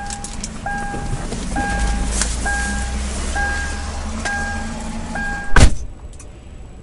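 An electronic beep repeating about once a second, six or seven times, over the rumble of a car. A single loud thump comes near the end.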